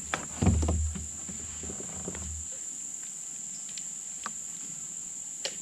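Steady high-pitched insect chorus, crickets or similar, trilling without a break. A low rumble with a few knocks sits under it for the first two and a half seconds, then stops.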